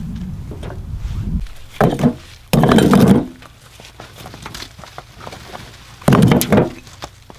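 Old bricks being dropped into a wheelbarrow already loaded with bricks: three heavy clunks, brick knocking on brick, about two seconds in, again half a second later, and about six seconds in.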